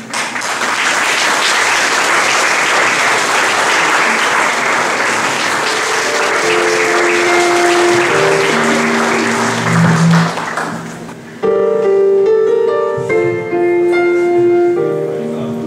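An audience applauds at length. Music fades in under the clapping about halfway through, and the clapping stops about two-thirds of the way in, leaving the music alone.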